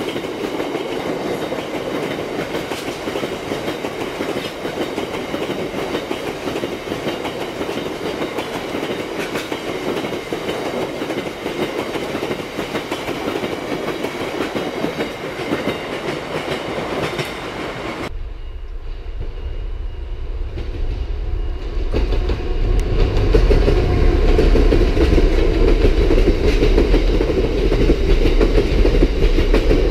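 Freight train of open box wagons rolling past close by, wheels clattering steadily over the rails. About eighteen seconds in the sound changes abruptly: a deep low rumble comes in under the wagon noise, which grows louder toward the end.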